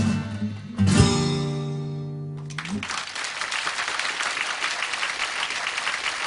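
The song's closing chord, with acoustic guitar, is struck about a second in and rings out as it fades. The audience then breaks into steady applause.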